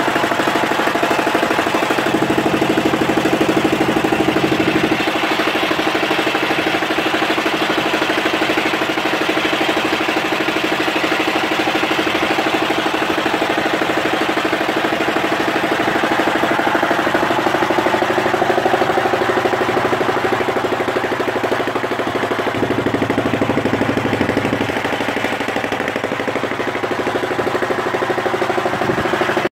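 Fishing boat's engine running steadily, with a rapid, even beat of firing pulses.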